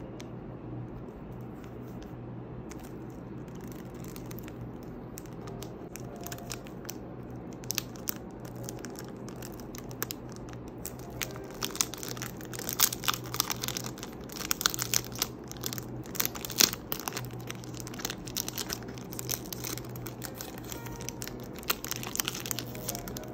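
Crinkling and crackling of cellophane shrink-wrap as it is picked at and torn off a perfume box. The crackles start about a third of the way in and come thickest and loudest around the middle, over a steady low hum.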